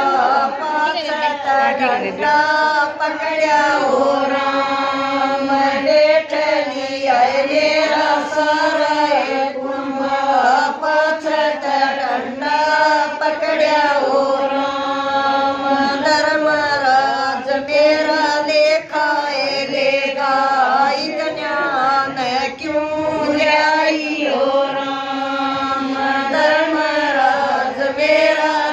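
Women singing a Haryanvi devotional bhajan together, in long held, wavering notes with no break.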